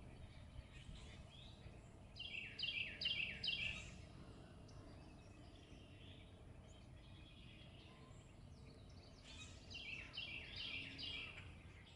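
A small songbird singing twice, each phrase a quick run of four or five high down-slurred notes, about two and a half seconds in and again near the end, over a steady low outdoor rumble.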